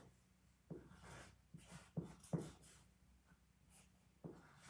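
Faint short taps and scratches of markers being drawn across cardboard, five or six in all over near silence.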